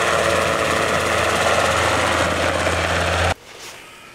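Small two-bladed light helicopter flying past low, its rotor and engine running with a steady drone that cuts off suddenly a little over three seconds in.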